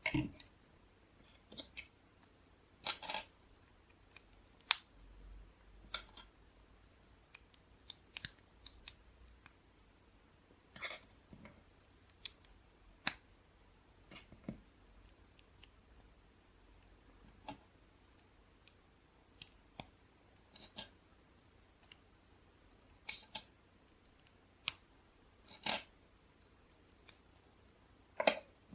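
LEGO bricks being handled and snapped together: scattered sharp plastic clicks at irregular intervals, roughly one every second or two.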